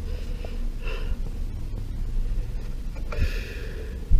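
Hands moving wires and parts inside the washer's base: faint rustling and handling noise, with one dull thump near the end.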